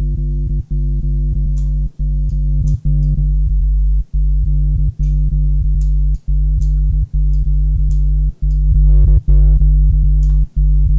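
Growly synthesized bass from a Native Instruments Massive patch, treated with phaser and overdrive and layered with a sub bass, played as a string of low held notes with short breaks between them. About nine seconds in it gets louder and brighter as a setting is changed.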